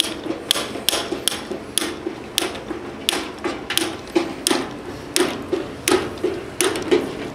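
Hydraulic hand pump being worked stroke after stroke, a sharp mechanical click about twice a second, pressurising the knockout ram to pull the punch through the steel panel and cut a 2-inch hole.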